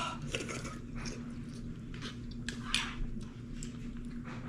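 Chewing and mouth sounds of someone eating spicy soup: scattered soft smacks and short clicks, with a faint steady hum underneath.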